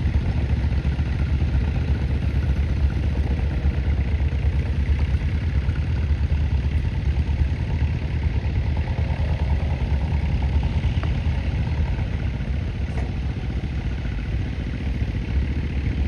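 Tractor engine running steadily with a low, even pulsing beat, easing off a little in the latter part and picking up again near the end.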